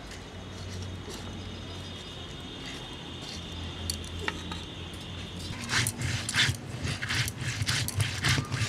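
Stone roller being worked back and forth over a wet flat grinding stone, grinding dry red chillies and cumin: a quick run of rough scraping strokes, about three a second, starting a little past halfway. Before that only a faint steady hum.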